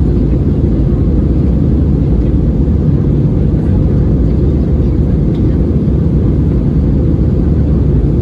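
Cabin noise of an Airbus A320-216 in flight shortly after takeoff: a steady low rumble from its CFM56 engines and the airflow, heard inside the cabin.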